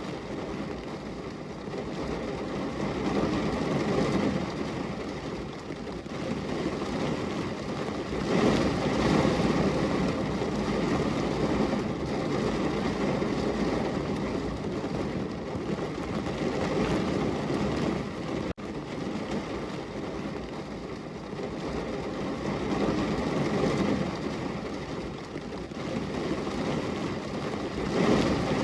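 Heavy rain pouring against a window, a steady rushing hiss that swells and eases every few seconds, with a momentary dropout about eighteen seconds in.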